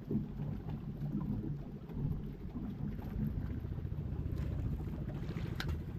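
Low, steady rumbling boat noise, the sound of a small fishing boat on the water, with a brief sharp click or knock near the end.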